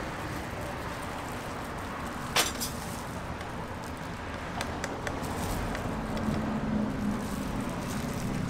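Steady street noise with traffic, a sharp clink about two and a half seconds in and a few lighter clicks, and a low hum near the end.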